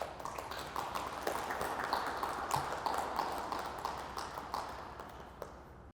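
Audience applauding, starting suddenly, with many separate claps, and dying down toward the end before it cuts off.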